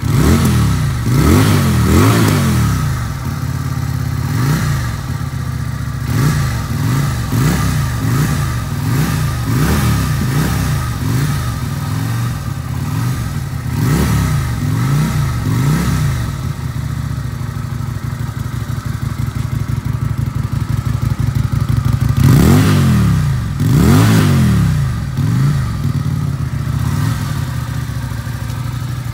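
Cruiser motorcycle engine idling and being revved in repeated quick throttle blips, the pitch rising and falling with each one. The biggest revs come near the start and again about three-quarters of the way through.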